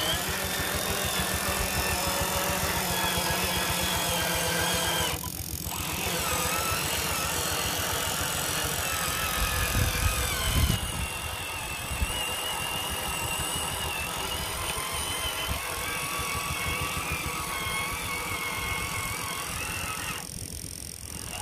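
Electric motor and gearbox of an RC 6x6 truck whining while it drives, the whine wavering up and down in pitch with throttle, over a rapid gear chatter. A louder low rumble comes about ten seconds in.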